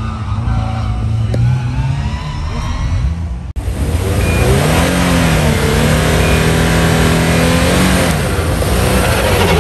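Rally car engines. A car runs in the distance for the first few seconds; then, after a sudden break, a Subaru WRX STI's turbocharged flat-four is revved up and held at steady revs on the stage start line, drops back about a second before the end, and starts to rise again.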